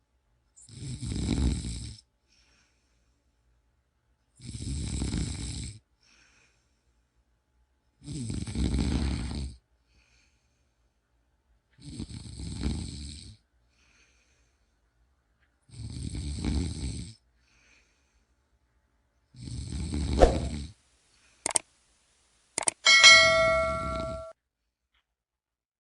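A person snoring in a slow, regular rhythm: seven rasping snores, each about a second and a half long, roughly every four seconds with silent gaps between. Near the end a few sharp clicks come, and the last snore has a steady ringing, ding-like tone laid over it.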